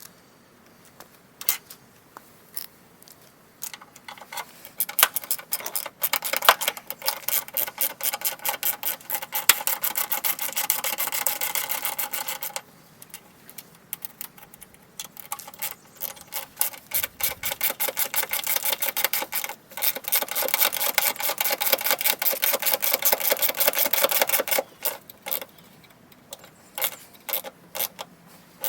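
Rapid mechanical clicking in two long runs of about eight seconds each, with scattered single clicks before, between and after.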